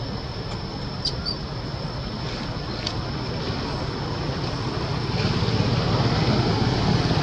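Steady rushing outdoor background noise with a thin, steady high whine over it and a couple of faint clicks; the rush grows louder about five seconds in.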